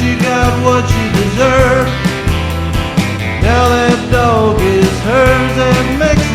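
Band music: a country-rock song with a steady bass and rhythm under a lead line that slides between notes.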